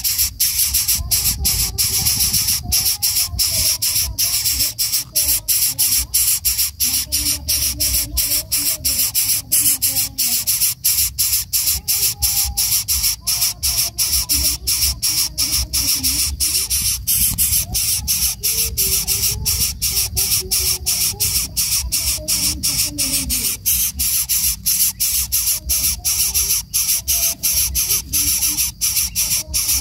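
Greater coucal nestlings hissing in the nest, a loud high hiss pulsing about three times a second, over a low rumble.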